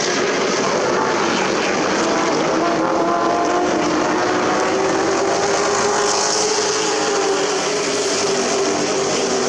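Super Truck race engines running steadily on the oval, with several engine pitches overlapping and drifting slightly up and down.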